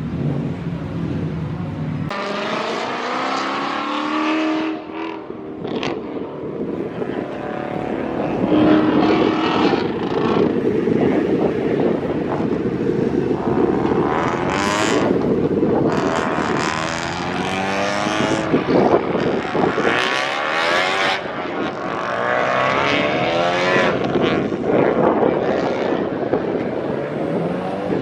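Holden Commodore VE SS ute's 6.0-litre V8 being driven hard on track, revving up through the gears and dropping back again, its pitch rising and falling over and over.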